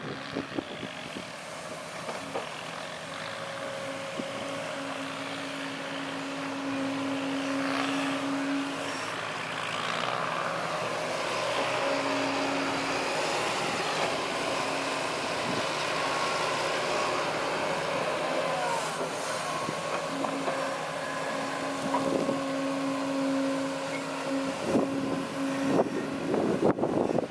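Diesel engines of heavy earthmoving machines running steadily at work, with a tone that rises out of the noise and fades several times.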